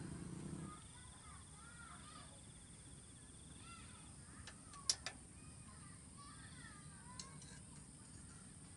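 Faint outdoor night ambience: an insect's steady high trill and many short repeated chirping calls, with two sharp metallic clinks of a cooking pot and utensils about five seconds in.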